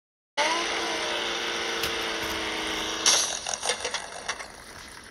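Lego Technic app-controlled rally car driving over rough concrete, its electric motors and plastic gear train whirring steadily. After about three seconds the whirring stops and a run of clicks and knocks follows as the sound fades.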